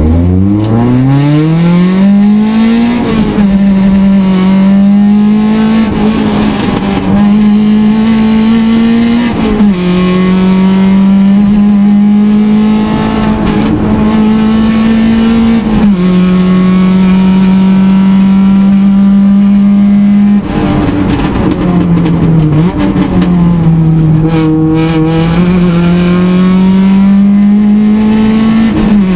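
Rally car engine heard from inside the cabin, pulling away hard from low revs and then held at high revs through the gears, the pitch dropping sharply at each upshift, four or five times.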